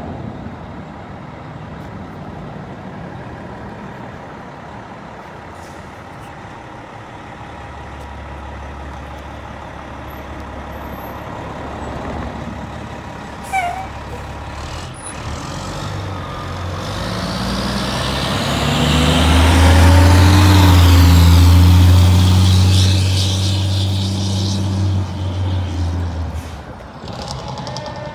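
Diesel engine of a Pierce Sky Boom quint fire truck pulling out and driving past. It grows to its loudest about two-thirds of the way through, then fades as the truck drives away. A short air-brake hiss comes around the middle.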